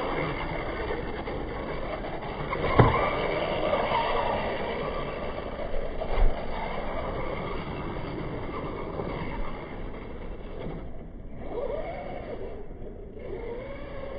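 RC buggy's electric motor whining, rising and falling in pitch as the car is driven over a dirt track. There is a sharp thump about three seconds in and a smaller one about six seconds in.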